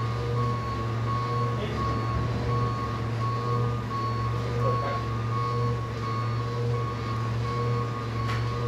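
Garbage truck's backup alarm beeping steadily in an even repeating pattern, with the truck's engine running underneath.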